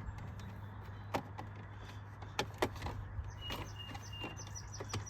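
Plastic interior trim clicking and knocking as a console trim panel is pressed back into place, several sharp clicks with a cluster of three close together partway through, over a steady low hum.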